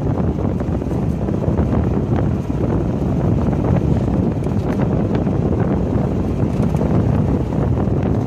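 Wind buffeting the microphone over a steady low vehicle rumble.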